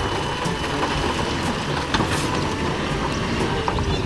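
Load of rock and dirt sliding and clattering out of a raised dump truck bed, many stones knocking together, over the low rumble of the truck.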